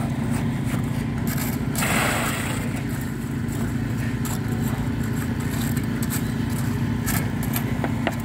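A small engine driving construction machinery runs steadily, with a short scraping rush about two seconds in.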